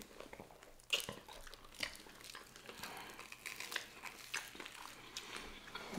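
Two people chewing and biting into grilled cheeseburgers: a run of small mouth clicks and smacks, with a sharper one about a second in.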